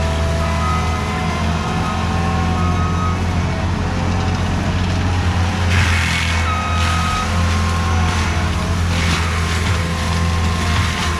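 Skid steer's diesel engine running steadily under load, with short repeated beeps in the first few seconds and a few bursts of rushing noise later on.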